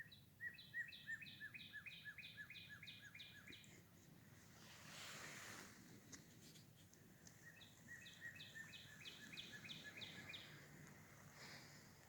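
A songbird singing two phrases of evenly repeated, slurred notes, about four a second, each phrase lasting some three seconds, faint against quiet woodland air. A soft rush of noise swells between the two phrases.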